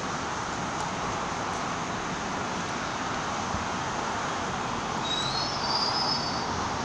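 MBTA Red Line subway train rolling into the station with a steady rumble of wheels on rail. About five seconds in, a brief high squeal joins it, rising slightly in pitch.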